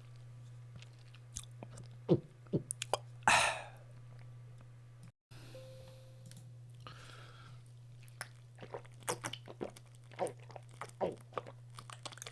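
A person drinking and swallowing: wet gulps and clicks of the mouth and throat, a few scattered in the first half and then many in quick succession in the second half, over a low steady hum.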